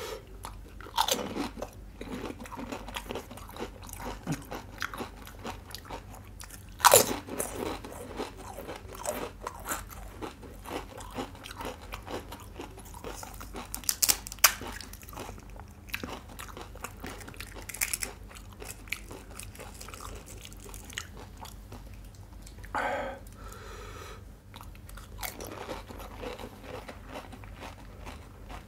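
Close-miked crunching and chewing as crisp pani puri shells are bitten and eaten: a sharp loud crunch at each bite, several seconds apart, with steady quieter chewing in between.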